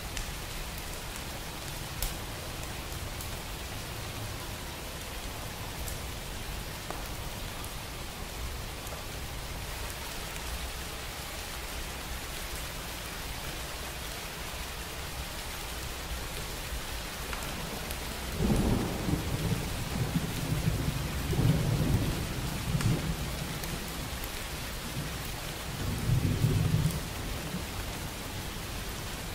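Steady rain falling. Past the halfway mark a low rumble of thunder rolls in, swelling and fading in waves for several seconds, and a second roll comes near the end.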